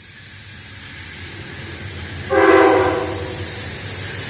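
Amtrak P42 Genesis diesel locomotive approaching, its rumble growing louder, with one short, loud chord blast of its air horn a little past two seconds in.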